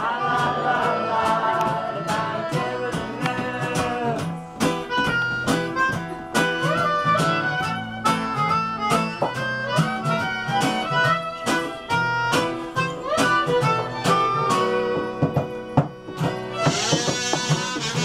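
Instrumental break of a live folk song: a harmonica plays a melody with bent notes over plucked and strummed acoustic guitar. A brighter, higher-pitched sound comes in near the end.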